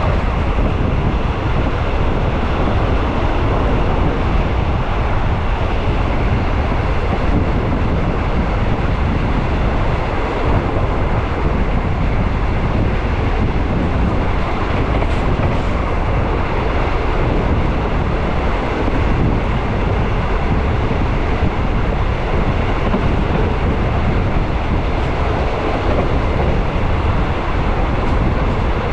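A train running steadily, a continuous low rumble.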